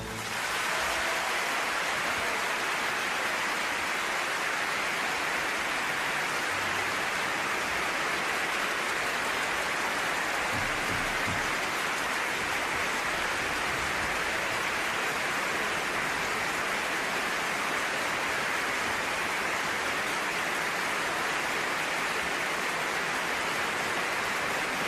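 A steady, even hiss that does not change in level and has no tune or voice in it.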